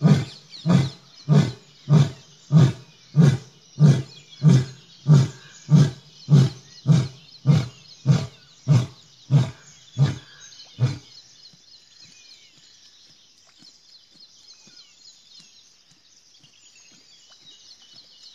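Male Asiatic lion's roar trailing off in its closing series of deep grunts, about one and a half a second and eighteen in all, fading out about eleven seconds in. After that, faint soft ticks of the lion lapping water from the trough.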